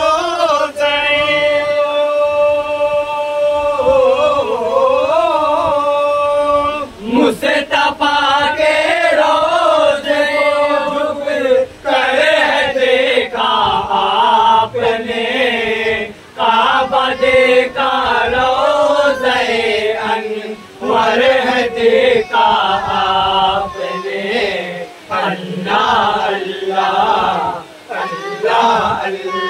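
A group of men singing a devotional Urdu naat together without instruments, holding one long note for the first few seconds and then moving into a winding, ornamented melody.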